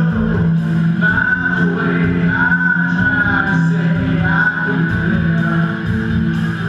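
Live rock band playing loudly: electric guitar, bass and drums, with a singer's gliding melody line over held low notes.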